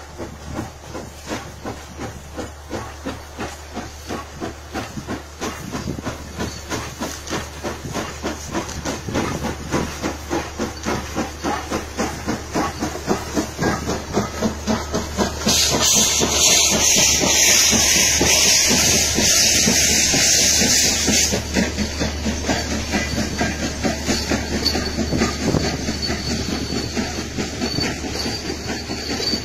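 Steam locomotive hauling a passenger train past, its exhaust chuffing in a steady beat of about two a second that grows louder as it approaches. About fifteen seconds in, a loud hiss of steam starts and lasts some six seconds as the engine goes by. After that the coaches roll past with a rhythmic clatter.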